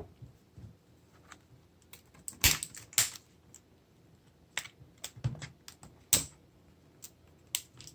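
Scattered sharp clicks and light rustles of an L.O.L. Surprise Under Wraps doll's plastic packaging being handled and opened, irregular and uneven in strength.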